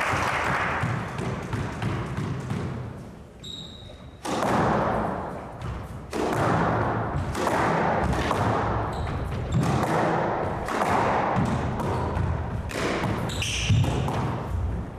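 Applause fades out. About four seconds later a squash rally begins: the hard rubber ball is struck by the racquets and knocks off the walls and the wooden court at an irregular pace, with a few short high squeaks.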